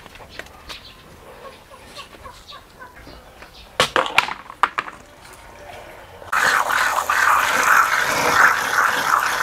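A few knocks about four seconds in. Then, about six seconds in, a tap is turned on and water runs steadily, splashing as a large leaf is rinsed under it.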